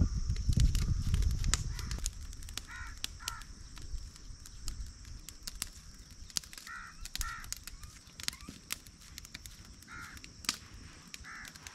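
Crows cawing about six times, some calls in pairs. Beneath them are soft handling sounds of hands pressing minced meat onto a metal skewer, loudest in the first second and a half, and a steady high hiss.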